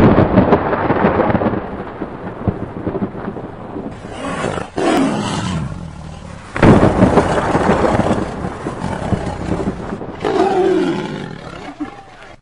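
Intro sound effects of thunder crashes and a tiger's roar, coming in several loud surges that fade away. The loudest surge is about six and a half seconds in, and a last roar-like surge comes about ten seconds in.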